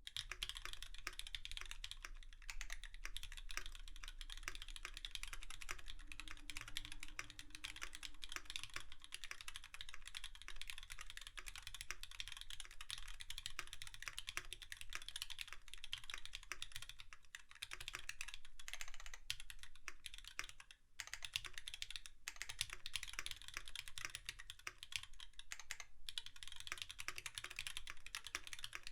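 Continuous fast typing on a mechanical keyboard with lubed retooled Cherry MX Black linear switches, 52 g springs, GMK Honeywell keycaps and a brass plate: a dense run of key clacks with a brief pause about three-quarters of the way through.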